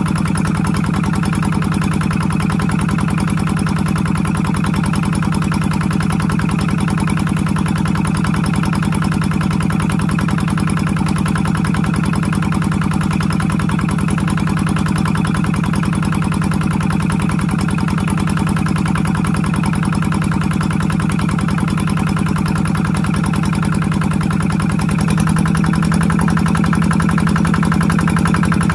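Engine of a water pump running steadily with an even pulse. About 25 seconds in, its pitch steps up slightly and it gets a little louder.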